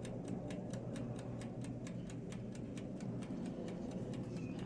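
Mechanical wind-up timer of a GE toaster oven ticking evenly, about four ticks a second, as it counts down after being set to about 20 minutes on bake, over a low steady hum.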